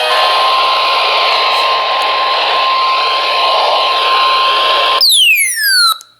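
Radio receiver static hiss with a thin steady tone near 1 kHz running through it for nearly five seconds. The tone then gives way to a falling whistle with overtones that sweeps down for about a second before the sound cuts out.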